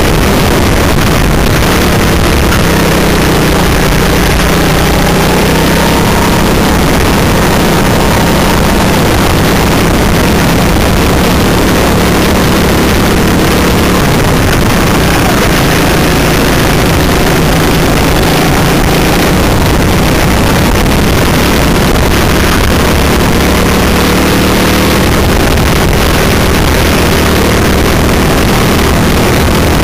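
Racing kart engine heard onboard at full race pace, a loud continuous buzz whose pitch drops and climbs again several times as the kart brakes for corners and accelerates out of them.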